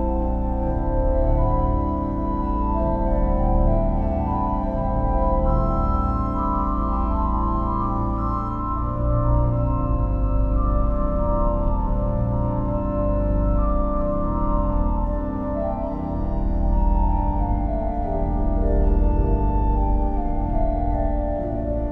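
Church organ playing slow, sustained chords over deep bass notes.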